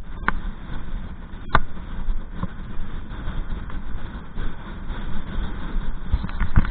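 Strong wind buffeting the microphone, a steady low rumble, with a few short knocks or bumps, three in the first two and a half seconds.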